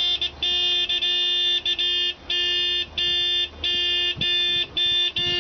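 Car horns honking in a long run of blasts, each about half a second to a second long, with short breaks between them: drivers sounding their horns together in protest.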